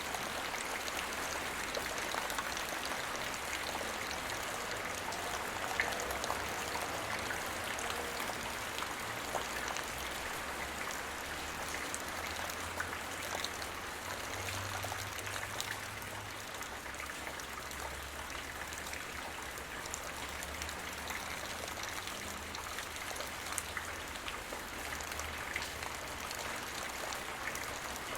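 Light rain falling steadily, drops pattering on the ground with many small individual drip ticks over a continuous hiss.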